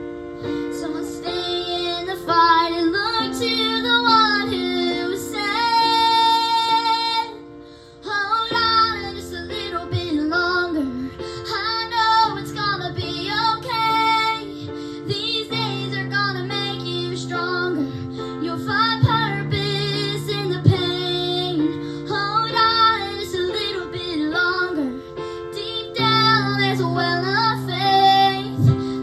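Female voices singing a song with instrumental accompaniment, holding long notes over sustained low chords.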